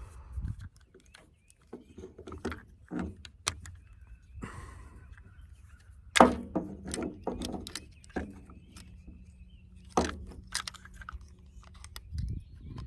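Clicking and knocking of small parts of a livestock waterer's float valve being handled and fitted together by hand: a run of sharp taps and clicks, loudest about six seconds in and again about ten seconds in.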